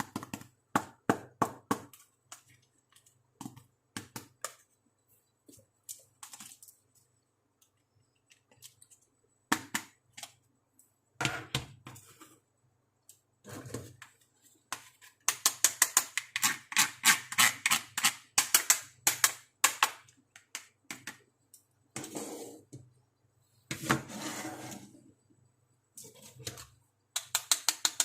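Pieces of a plastic toy makeup kit being handled and unboxed: scattered sharp clicks and taps, a run of quick clicks in the middle, and two short rustling scrapes later on.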